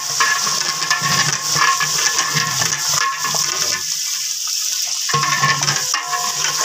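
Food sizzling and hissing in a large aluminium deg over a wood fire as a long metal ladle stirs it. The steady hiss runs under an intermittent lower sound that drops away about four seconds in.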